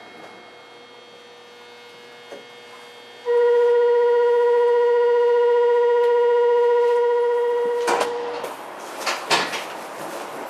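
A monorail station's departure buzzer sounds as one loud, steady electric tone for about five seconds, then stops; a few sharp knocks and thuds follow as the car's sliding doors close.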